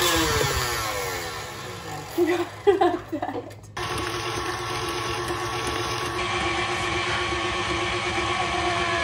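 KitchenAid Classic Plus stand mixer whisking batter, its motor whine falling in pitch over the first second or so as the speed lever is turned down. A few short, louder sounds follow, then after a cut about four seconds in the mixer motor runs with a steady hum.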